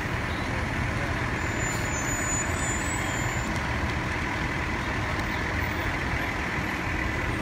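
Heavy flatbed truck's diesel engine running close by, a steady low rumble over city street noise.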